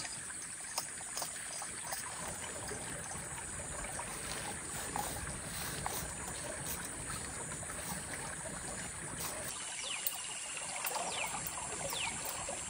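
Steady rush of a creek running, with a few light clicks and knocks from a portable gas camping stove being assembled. Several quick falling chirps near the end.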